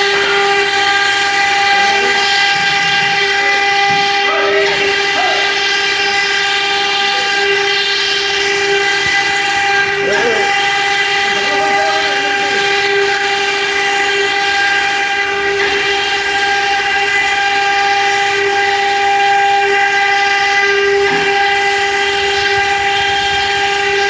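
Stone-carving CNC machine's spindles running with a loud, steady, high-pitched whine that holds one pitch throughout.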